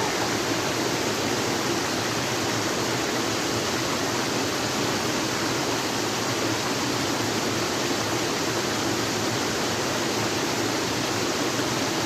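Steady rush of a mountain river's flowing water, an even hiss without breaks.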